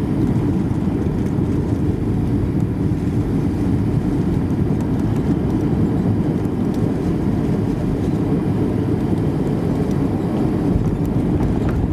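Cabin noise of a Boeing 737 during landing and rollout, heard from a window seat over the wing: a steady low rumble of jet engines and rushing air that stays even throughout.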